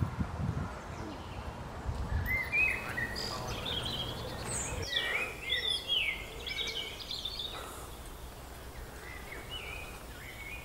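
Songbirds singing: many short chirps and gliding whistled phrases, busiest from about two to six seconds in and thinning out after. A low rumble on the microphone runs through the first couple of seconds.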